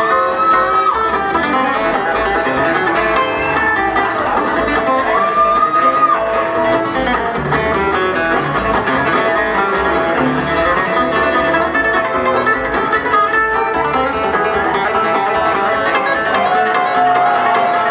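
Live bluegrass band playing an instrumental passage on acoustic guitars, fiddle, dobro and upright bass, with long held notes and a few sliding notes.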